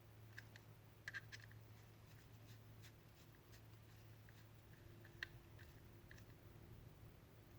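Near silence: a few faint clicks and ticks of small clipper parts being handled and fitted, over a low steady hum.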